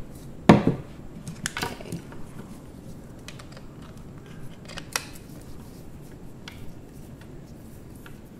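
Clicks and knocks of a Manfrotto Pixi mini tripod and a small DSLR being handled and fitted together: a loud knock about half a second in, a cluster of clicks a second later, a sharp click near the middle, then scattered faint ticks.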